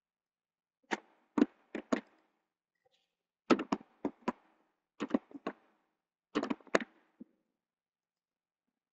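Computer keyboard keys clicking in four short bursts of a few keystrokes each, the presses of copy-and-paste shortcuts as a line of text is duplicated.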